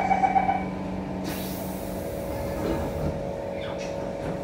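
On board a Siemens C651 metro train: a rapid electronic beeping that stops about half a second in, a short hiss of compressed air about a second in, then a steady tone that sets in about two seconds in, over the train's constant low hum.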